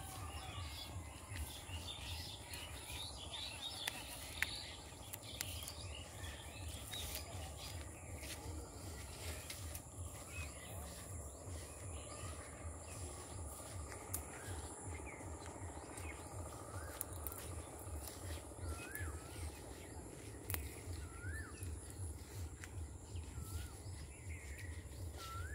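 Small birds chirping in the open: a dense twittering chatter for the first several seconds, then scattered single rising-and-falling calls, over a steady low rumble.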